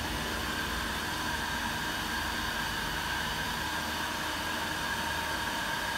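Steady background hiss with a faint, even hum in it; nothing starts or stops.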